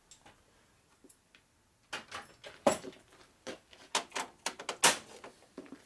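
Quiet for about two seconds, then a run of sharp clicks and knocks from tools and small metal parts being handled on a steel workbench. The loudest knock comes near the end.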